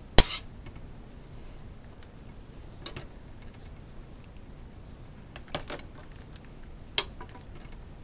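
A few short, sharp knocks and clicks of kitchen handling, four in all and spaced a couple of seconds apart, over quiet room tone; the loudest comes just after the start.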